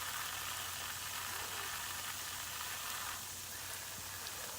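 Fine water spray hissing as a pet parrot is given a shower. The hiss eases off about three seconds in.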